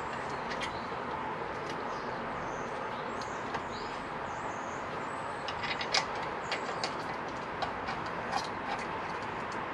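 Light metallic clicks and clinks of bolts and a steel exhaust can being fitted to a motorcycle's mounting bracket, the sharpest about six seconds in, over a steady background hiss.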